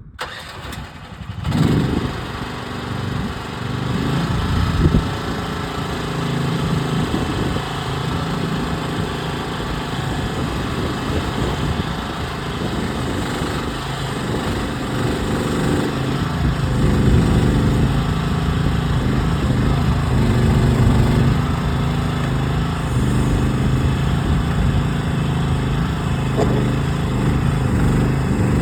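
Gas engine of a Groundhog ZH12G mini excavator running, louder from about a second and a half in, its level rising and falling as the machine digs in rocky soil.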